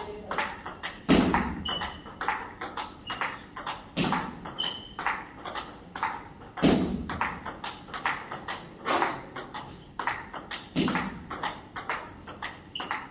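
Table tennis ball clicking back and forth between rubber paddles and the table in a continuous practice rally, a quick, even run of sharp ticks. A few heavier low thumps come in among them.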